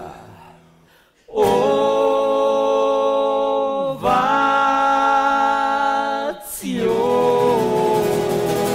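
Male voices singing three long held notes, with almost no guitar. The singing starts about a second in after a brief lull, and each note lasts about two and a half seconds before moving to the next.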